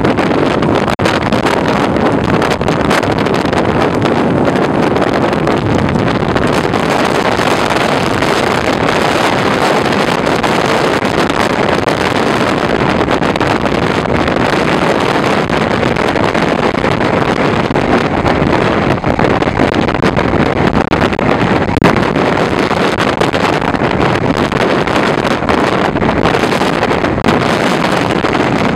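Strong hurricane wind buffeting the microphone, a loud steady rushing noise with no let-up, with heavy surf breaking on the beach underneath.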